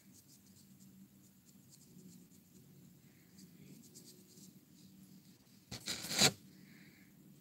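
Light scratching and rubbing from hands at work on a surface, with one louder, longer scrape about six seconds in. A faint steady low hum sits underneath.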